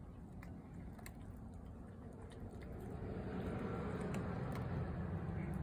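A motor vehicle approaching: its low rumble grows steadily louder from about halfway in. Faint clicks of a cat eating wet food from a bowl sit underneath.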